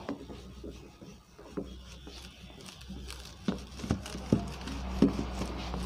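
A duster wiping a whiteboard in scuffing strokes, with a few sharp knocks in the second half.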